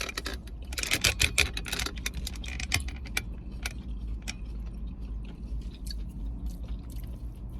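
Crunching and chewing of crispy battered bang bang shrimp and chicken close to the microphone: a run of sharp crackles, densest a second or so in, then scattered. A steady low hum runs underneath.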